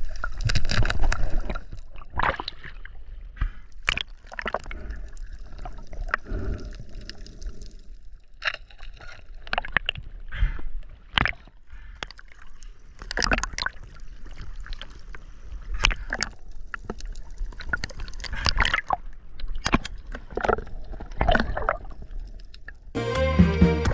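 Water sloshing and gurgling close to the microphone, broken by irregular knocks and clicks, with a short buzzy sound near the end.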